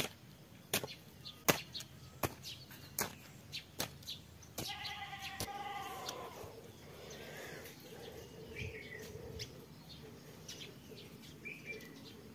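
A run of sharp knocks, about one every 0.7 seconds, then a farm animal bleats once, a drawn-out wavering call about a second and a half long, roughly five seconds in. A couple of faint bird chirps follow later.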